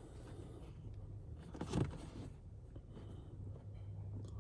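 Paper clip touching across two metal terminals of the unplugged ignition switch connector, a short click about a second and a half in, with a few fainter ticks, over a faint low steady hum. Bridging the terminals makes a small spark and powers the vehicle on, bypassing the ignition switch.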